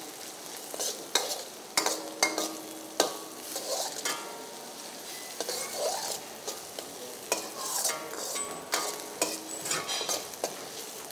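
Chopped onions and tomatoes sizzling in oil in a wok while a metal spatula stirs and scrapes the pan in irregular strokes, each scrape giving a short metallic ring.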